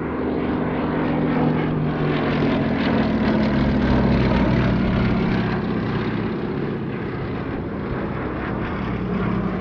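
Westland Lysander's Bristol Mercury nine-cylinder radial engine and propeller running on a close display pass. It swells to its loudest about four seconds in as the aircraft passes overhead, dropping a little in pitch, then fades slightly as it heads away.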